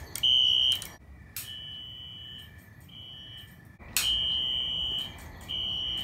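Wheelock ZNS fire alarm horn sounding as the alarm system starts up: a high electronic beep, one long and one short, repeating about every two and a half seconds. Each cycle begins with a sharp click.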